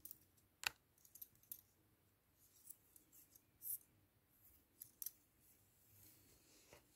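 Faint, scattered clicks of double-pointed knitting needles from a five-needle set tapping against each other as stitches are knitted, about a dozen sharp ticks at irregular intervals.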